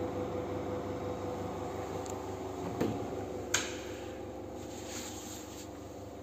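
Quiet room tone: a steady low hum, with two short knocks about three seconds in.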